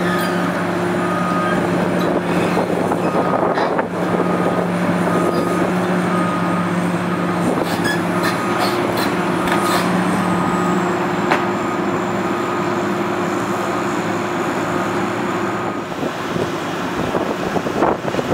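Diesel engine of a long-reach tracked demolition excavator running steadily, with a faint high beep repeating at even intervals and a few scattered clanks. The sound changes near the end.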